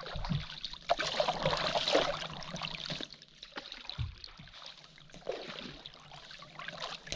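Kayak paddles dipping and splashing in river water, with water trickling and dripping off the blades; the splashing is loudest in the first two seconds, then quieter.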